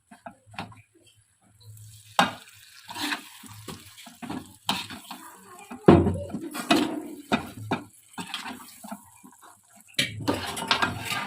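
Spatula scraping and knocking against a kadhai while stirring a thick mix of ground roasted chickpeas and turmeric in ghee. The scrapes and clanks come irregularly, loudest about six seconds in and again near the end.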